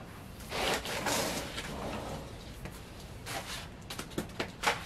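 Handling noises from assembling a sewing-machine table: a soft rustling slide lasting about a second and a half, then a few light clicks and knocks as parts are moved.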